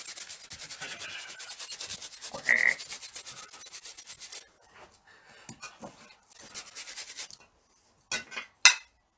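Improvised sound effects made with household objects: fast, even rubbing or scraping strokes with a short high squeak about two and a half seconds in, then a few sharp clicks near the end.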